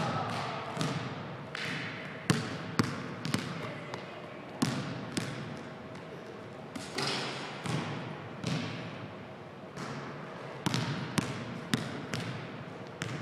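Basketball being dribbled on a hardwood gym floor: a run of bounces about half a second apart, in short sets with pauses between, each bounce echoing in the hall.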